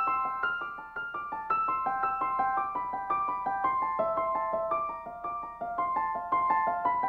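Background piano music: a gentle melody of evenly paced notes, about four a second.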